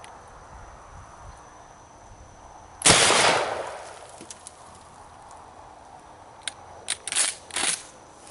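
A single 12-gauge shotgun blast about three seconds in, loud and sudden, ringing off over about a second. Near the end come a few short, sharp clicks and clacks.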